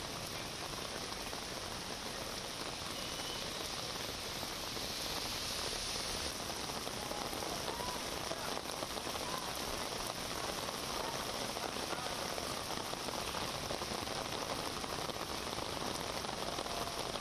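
Heavy rain pouring onto a paved road, a steady hiss of rain on the surface.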